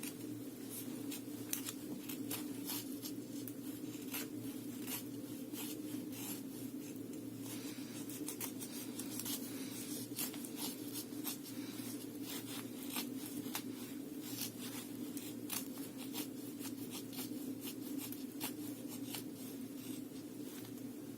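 Small blade of a Victorinox Escort pocket knife whittling shavings off dead wood: a long run of short, irregular scraping strokes.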